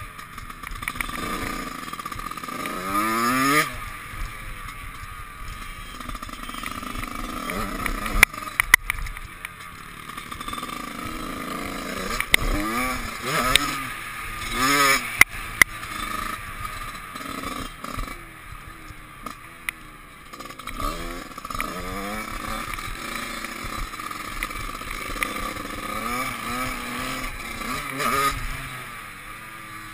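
Dirt bike engine heard from the rider's helmet camera, revving up and falling back again and again as the bike accelerates and shifts around a motocross track. Several sharp clacks come through over the middle of the stretch.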